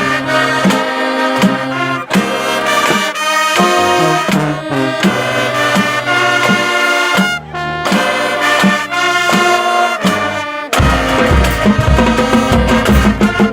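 Marching band brass section playing a melody with the low end mostly dropped out. About eleven seconds in the full band comes back in with deep, pulsing low notes.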